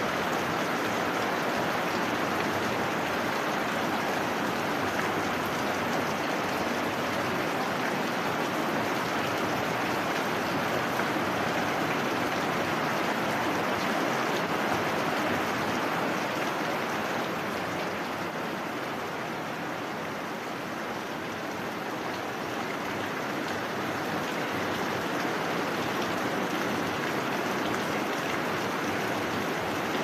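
Heavy rain falling steadily, an even hiss that eases slightly about two-thirds of the way through.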